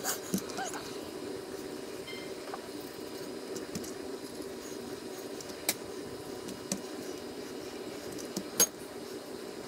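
Chef's knife slicing raw venison backstrap on a plastic cutting board, with a few sharp knocks as the blade meets the board, the loudest near the end, over a steady low hum.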